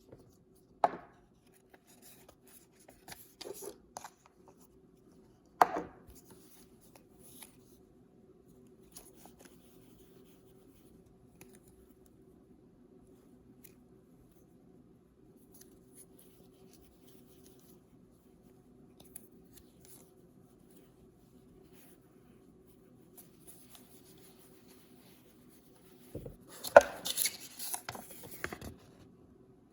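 Unboxing packaging being handled: a few sharp taps and clicks of toy packaging set down or opened, then a couple of seconds of crinkling and rustling near the end.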